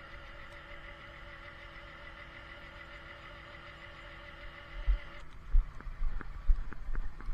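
Steady mechanical whine with several held tones from the tow truck, cutting off suddenly about five seconds in, followed by a run of irregular knocks and low thumps.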